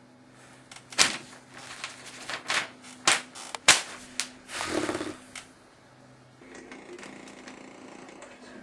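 A run of sharp, irregular knocks and clicks, several of them loud, over a faint steady hum; they stop about two-thirds of the way through.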